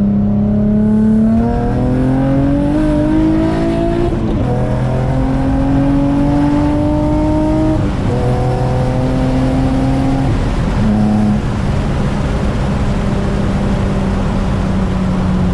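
Infiniti G35's 3.5-litre V6 pulling hard through the gears: the engine note rises, drops at a shift about 4 seconds in, rises again, drops at another shift about 8 seconds in, then settles to a steady drone for the last few seconds.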